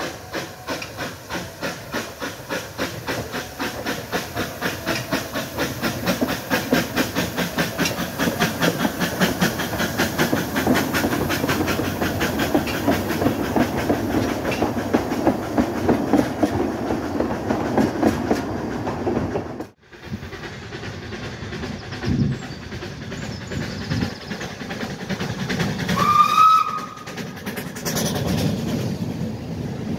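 Isle of Man Railway narrow-gauge steam locomotive No 15 "Caledonia", an 0-6-0 tank engine, working a train away: steady exhaust chuffs that quicken and grow louder over the first twenty seconds. After a break the engine passes close by with steam hissing and gives one short, rising whistle blast about 26 seconds in.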